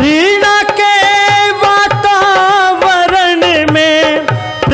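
A man singing one long held note of a Hindi devotional song into a microphone, the note rising at the start and held for about four seconds, with tabla beats about once a second beneath it.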